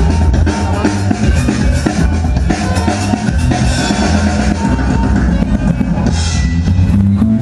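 Music with a heavy drum-kit beat of bass drum and snare over a steady bass line.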